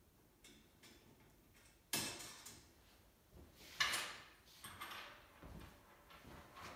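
Metal tools and loose bolts clattering on a wooden tabletop: two sharp clatters about two seconds apart, after a few faint clicks. Lighter knocks of footsteps follow.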